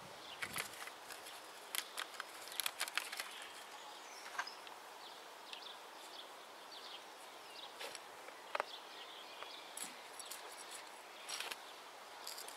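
Hands scraping and pressing dry, lumpy soil while lettuce seedlings are planted out: scattered crackles and scuffs of crumbling earth, a few sharper clicks, over a steady outdoor hiss.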